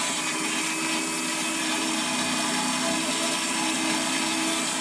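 Hafco BS-5V portable bandsaw running, its blade cutting through 10 mm mild steel plate: a steady hum under an even hiss.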